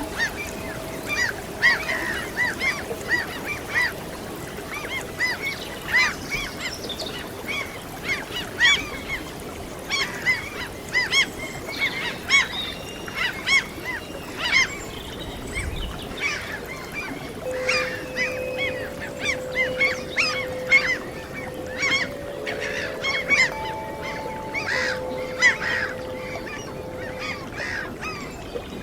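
A flock of gulls calling over and over in short, overlapping cries, above a steady wash of sea waves. About two thirds of the way in, soft long held notes join underneath, a flute-like tone from the relaxation music.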